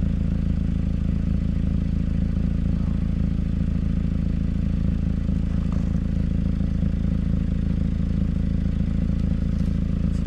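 2011 Mazda 3's four-cylinder engine idling steadily, heard close to the exhaust, which has a hidden leak. A few light clicks near the end.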